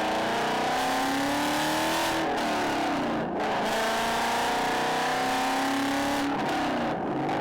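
Ford Mustang with aftermarket exhaust headers accelerating, the engine note climbing steadily, then dropping at an upshift about three seconds in. It climbs again through the next gear and drops at another shift near the end.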